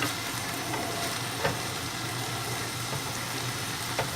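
Ground turkey frying in a pan on the stove: a steady sizzle, with a low hum underneath and a couple of light clicks about a second and a half in and near the end.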